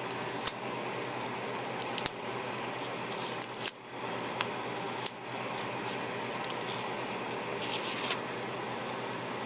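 Hands putting adhesive tape onto a ribbon and paper card layer: scattered sharp clicks and scratchy rustles of tape and cardstock being handled, over a steady faint hum.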